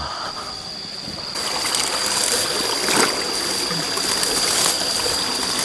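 Water trickling and running, starting suddenly about a second in, under a steady high-pitched insect drone.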